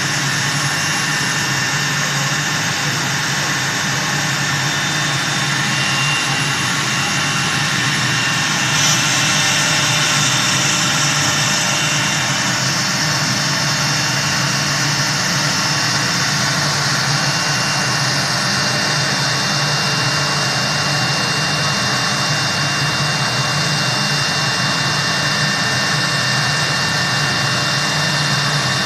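Three-spindle CNC router running: steady machine noise with a constant high whine from the spindles, the hiss brightening briefly about nine seconds in.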